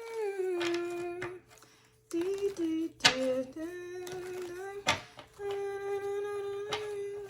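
A woman humming a slow tune in a few held phrases with short breaks between them. Two sharp clicks come about three and five seconds in.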